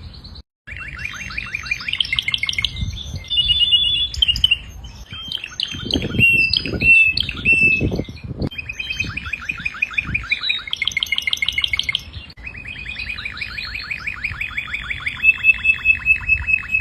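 Domestic canary singing a long song of rapid trills, each a fast run of identical repeated notes, switching to a new trill every second or two. A louder, rougher passage comes in the middle, and there is a short break about half a second in.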